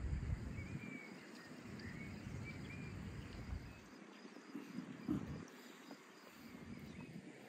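Whole marinated raw chickens being slid by hand onto a wooden spit: faint handling with one sharp knock about five seconds in. Faint high chirps come from the rural background in the first few seconds.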